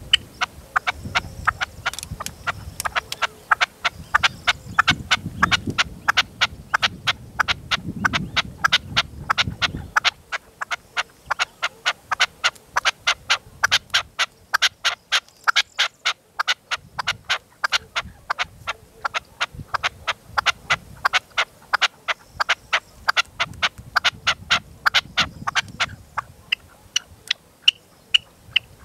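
Red-legged partridge, the caged decoy male, calling in a rapid, even string of short sharp notes, about four a second. Gusts of wind rumble on the microphone for the first ten seconds or so.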